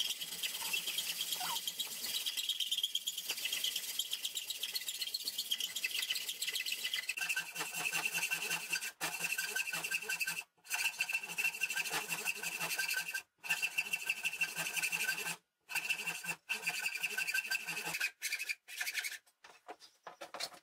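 Hacksaws cutting through a wooden banjo-neck blank held in a vise: a steady rasp of back-and-forth strokes with a high ringing tone over it, stronger from about a third of the way in. The sound cuts off abruptly several times in the second half.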